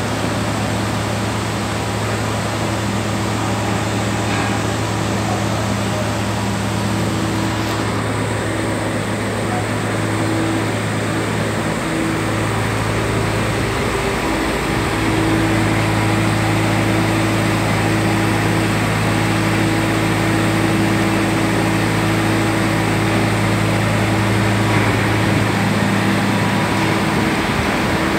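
Steady hum of running industrial machinery: several low tones held over a hiss, with no break, growing slightly louder about halfway.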